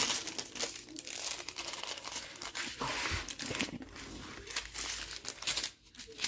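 Plastic packaging crinkling and rustling as strip packets of diamond-painting drills are handled and unfolded over a plastic-covered canvas, with many quick crackles and a brief lull near the end.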